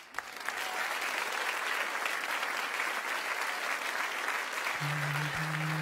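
Studio audience applauding. Near the end, a low, steady hummed vocal note comes in under the applause.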